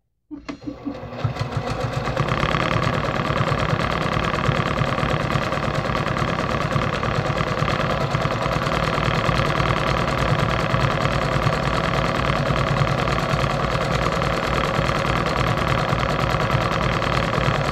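Brother PQ1500SL straight-stitch sewing machine stitching through a quilt sandwich during free-motion quilting. It starts with a few separate stitches, builds within a couple of seconds to a fast, even run, and holds that speed.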